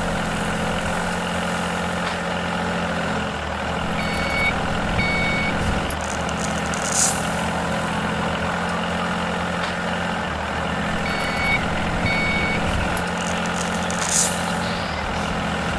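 A heavy vehicle's engine running steadily, with two short reversing beeps about four seconds in and two more about eleven seconds in, and a brief hiss of air about every seven seconds.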